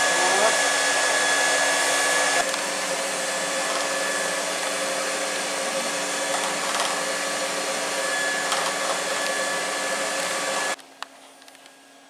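Canister vacuum cleaner running with a steady rushing noise and a thin whine. It dips slightly in level a couple of seconds in and stops abruptly near the end.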